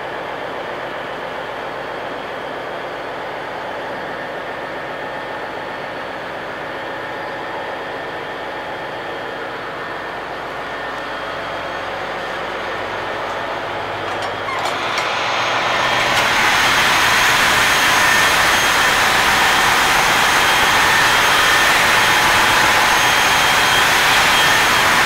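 Steady drone of a container ship's engine-room machinery, muffled at first. After a faint click a little past halfway, it grows louder and brighter: a full roar with a steady high whine running through it.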